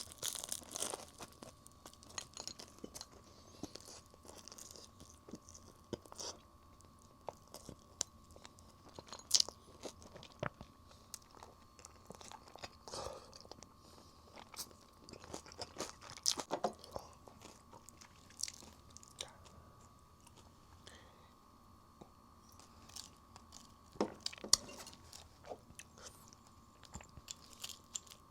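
Fried chicken being eaten up close: irregular crisp crunches of the breaded crust and chewing, with sharper crunching bites about 9, 16 and 24 seconds in.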